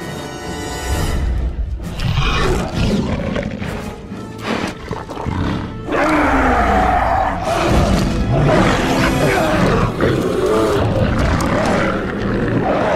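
Dramatic film music with creature roars and snarls over it, louder from about six seconds in: the Hulk and the mutant Hulk dogs roaring and growling as they fight.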